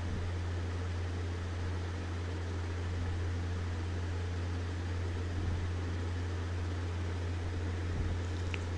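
Steady low hum with an even background hiss, like a fan or appliance running, and a couple of faint soft knocks near the middle and end.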